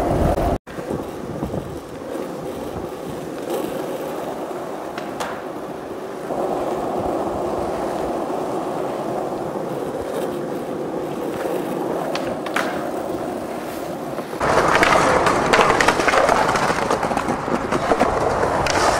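Skateboard wheels rolling on pavement, a steady rumbling roll with a few sharp clicks. About fourteen seconds in it turns louder and coarser, rolling over paving stones.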